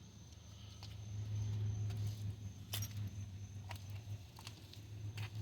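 Steady insect trill, such as crickets, with scattered light clicks and jingles, over a low rumble that swells about a second in.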